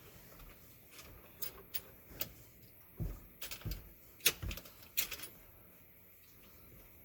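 Plastic steering column trim pieces being handled and fitted: a run of sharp clicks and knocks, the loudest a little after four seconds in.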